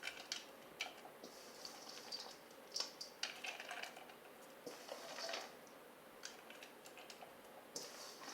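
Pieces of cinnamon-sugar-coated biscuit dough and chopped walnuts being placed into a greased bundt cake pan: faint, irregular small clicks and taps.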